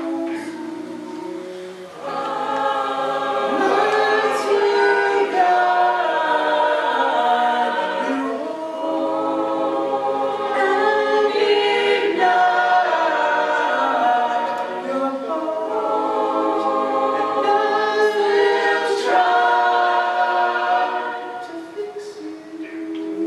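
An a cappella vocal group singing in multi-part harmony, voices only, with held chords that shift every second or so. The singing dips briefly about two seconds in, then swells, and thins out near the end.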